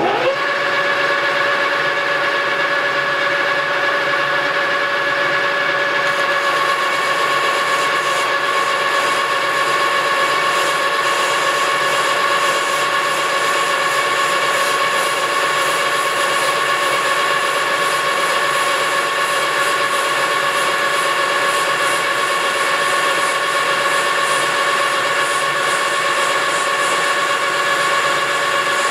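Engine lathe coming up to speed at the very start, then running with a steady, loud gear whine while the tool cuts an aluminum blank held in the chuck.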